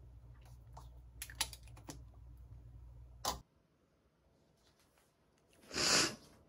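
Scattered light clicks over a low steady hum that cuts off abruptly about three and a half seconds in; near the end a short, loud whoosh of noise lasting about half a second.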